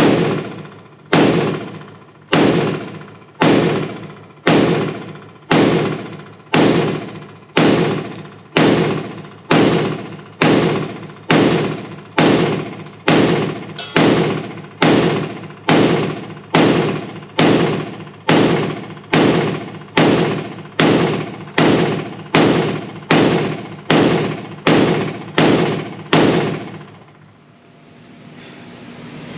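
Springfield Hellion 5.56 bullpup rifle fired semi-automatically at a steady pace of a little more than one shot a second, each shot trailing off in a ringing decay. About thirty shots in all, emptying the magazine, then the firing stops a few seconds before the end.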